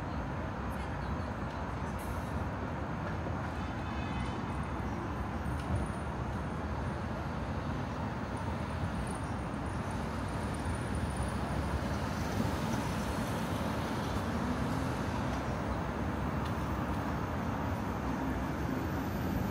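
Steady city street traffic noise: a continuous wash of passing vehicles.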